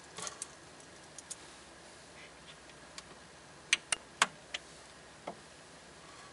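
Scattered sharp metallic clicks from handling a stainless steel dive watch and its link bracelet: a small cluster at the start, then three louder clicks close together about four seconds in and two fainter ones after.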